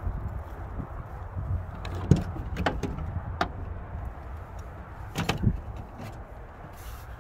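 Limo side door being opened: sharp clicks of the handle and latch, then a few clunks, over a steady low rumble.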